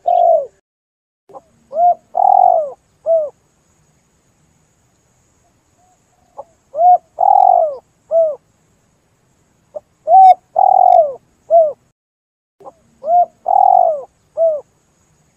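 Spotted dove cooing: four phrases a few seconds apart, each a short note, a long drawn-out note and a short closing note.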